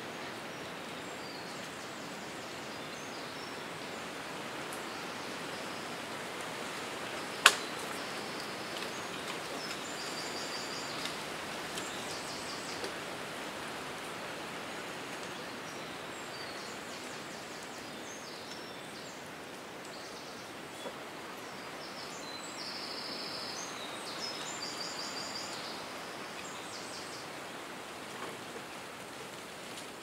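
Wind blowing through forest trees, a steady rush of leaves that slowly swells and eases. A single sharp click about seven seconds in is the loudest sound, and short high chirps come and go in the background.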